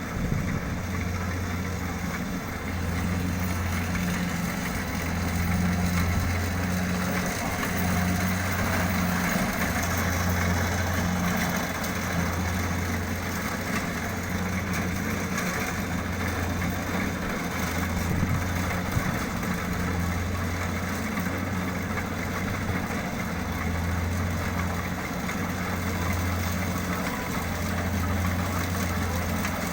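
Kubota DC-70 rice combine harvester's diesel engine running steadily under load in the field, with machinery clatter. A low hum swells and dips about every two seconds.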